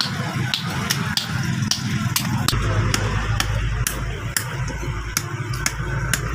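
Hammer blows ringing on steel at the anvil as an axe is forged, about two strikes a second, over a steady low machine hum.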